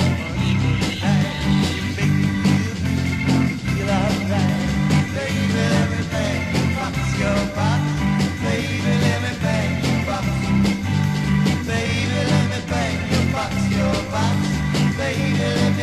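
1960s rock band playing from a vinyl record: organ, electric guitar, bass guitar and drums on a steady, driving beat.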